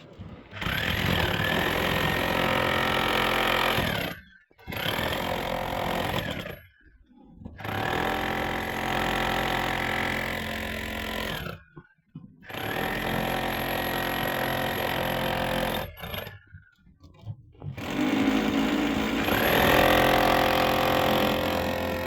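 A power tool running in repeated bursts of a few seconds, stopping briefly between them, five runs in all.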